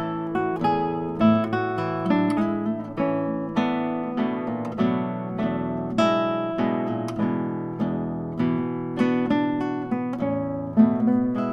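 Two classical guitars playing a habanera as a duet: plucked notes in a steady rhythm, with the upper notes moving over sustained low bass notes.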